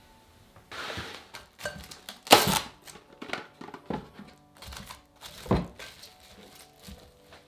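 Saran Wrap cling film being pulled off the roll, torn off, and crinkled as it is pressed over a glass bowl, with a few soft knocks; the loudest rip comes about two and a half seconds in. Quiet background music underneath.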